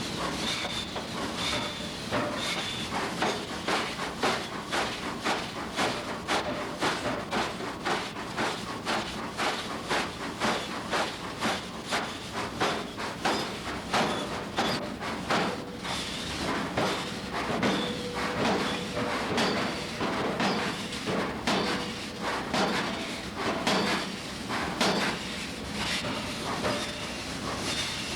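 Hammer blows on hot steel, about two a second, with some strikes ringing briefly, over a steady hiss, during forging of a wrench.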